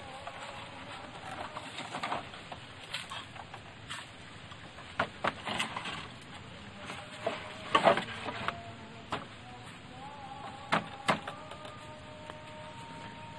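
Bamboo poles knocking and clacking against one another as they are handled and laid across a motorcycle's load rack: a run of sharp, irregular knocks, loudest in a cluster about eight seconds in.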